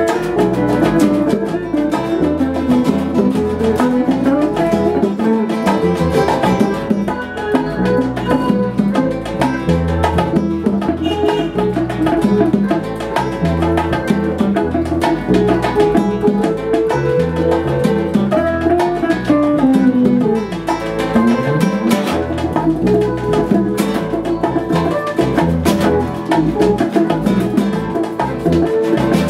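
Instrumental Cuban jam: guitars and hand drums playing a steady Latin groove, with a melody line that slides up and down in pitch.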